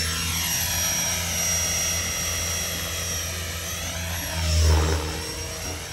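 Align 500 electric RC helicopter flying: a high motor whine with rotor blade noise, its pitch sweeping down and back up as the helicopter lifts off and manoeuvres. It swells louder for a moment just under five seconds in.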